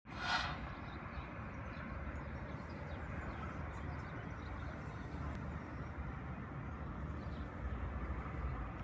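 Outdoor town ambience from a height: a steady low rumble of wind on the microphone over a faint distant traffic hum, with a brief rustle right at the start.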